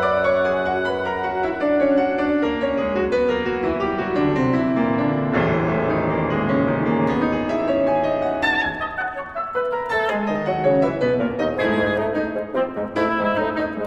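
Classical chamber music played by an oboe, bassoon and piano trio: held, moving wind lines over piano notes.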